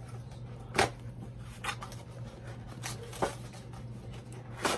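Cardboard doll box being opened by hand: several short, sharp cardboard snaps and scrapes as the end flap is worked open, the loudest a little under a second in.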